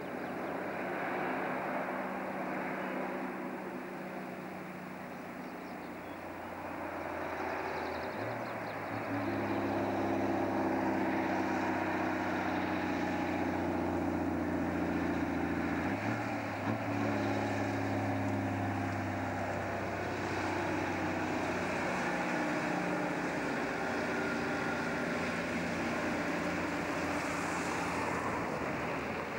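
Diesel engine of a truck and trailer loaded with sawn timber, running under load as it passes, over tyre and road noise. The engine note shifts abruptly twice, about 8 and 16 seconds in. It is loudest in the middle stretch.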